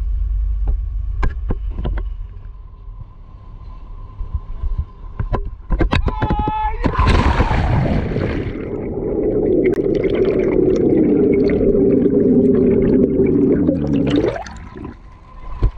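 Underwater sound of a scuba diver breathing through a regulator: a low rumble and scattered clicks, then a long rush of gurgling exhaled bubbles from about seven seconds in that stops near the end.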